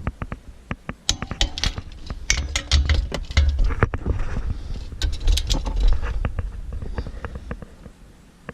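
Irregular sharp metallic clicks and clinks of a wrench being worked on the rear hub's retaining nuts, with a few low thumps in the middle.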